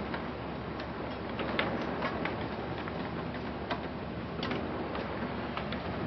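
Steady hiss of a heavy rainstorm, with irregular sharp ticks on the window glass.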